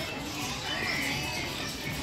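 Birds chirping against faint music.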